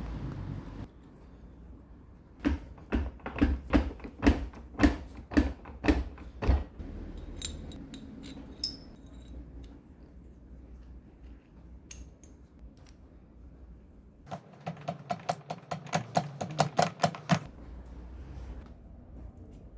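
Small metal tool parts being handled and worked by hand: a run of about ten sharp knocks, a few light tinkling clicks, then a quick, even run of ringing clicks near the end.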